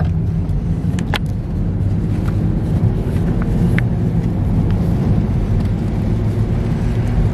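Steady low rumble inside a car cabin, with a few faint clicks from a cardboard phone-case box being handled.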